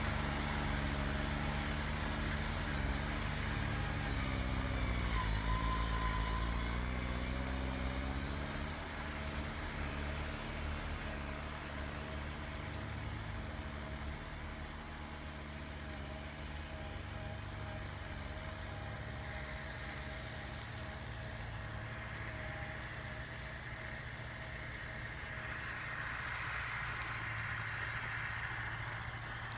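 Distant tractor diesel engine working under load as it pulls a plough, a steady drone that dips in pitch and recovers about five seconds in, then slowly fades.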